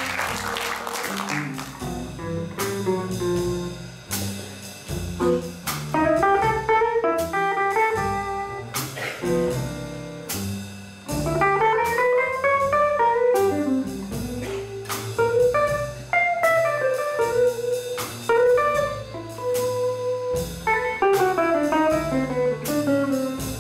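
Jazz guitar solo on an archtop guitar in a slow blues, single-note lines with bass and drums behind it. Applause fades out in the first second or two.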